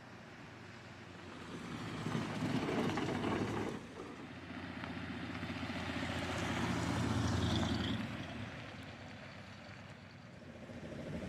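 Old bus engine running on a drive. The sound swells about two seconds in, drops back briefly, and builds again to its loudest around seven seconds before easing off.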